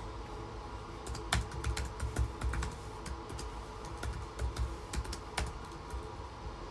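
Typing on a MacBook Air keyboard: a run of quick, irregular key clicks.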